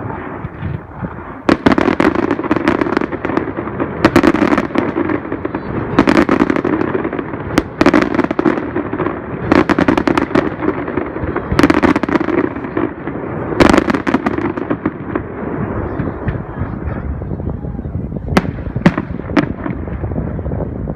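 Fireworks display: aerial shells bursting one after another with a continuous crackle in between. The bangs thin out to a few scattered reports near the end.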